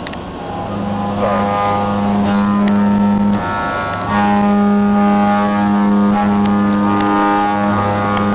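Hurco VM1P CNC vertical mill hard milling: the cutter in the cut gives a steady pitched whine with many overtones. It breaks off for a moment about three and a half seconds in and picks up again just after four seconds.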